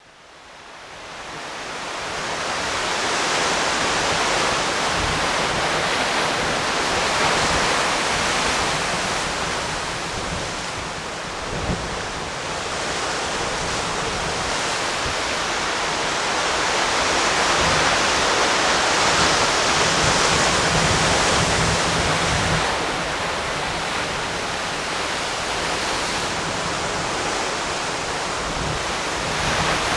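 Steady rushing noise with an irregular low rumble beneath, fading in over the first few seconds and swelling slowly.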